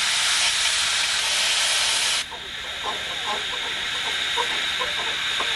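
Steam hissing from the vertical boiler of a small wood-fired steam rail car: a loud hiss that cuts off suddenly about two seconds in, followed by a softer, steady hiss.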